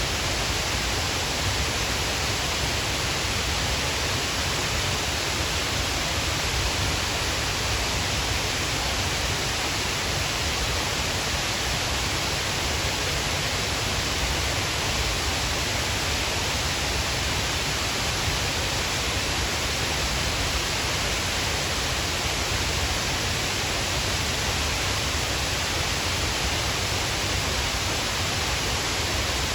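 Shiraito Falls, a wide curtain of many thin streams of water spilling over a cliff, making a steady, even rush of falling water.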